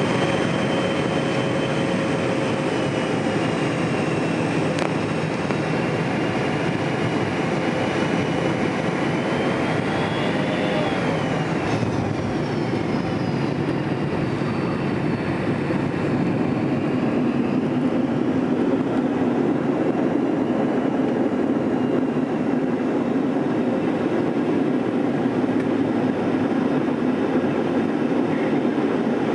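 Cabin noise of a McDonnell Douglas MD-80 landing: the steady rush of its rear-mounted jet engines and airflow, with a thin engine whine that shifts in pitch around touchdown about halfway through. A deeper, louder rumble builds during the rollout on the runway.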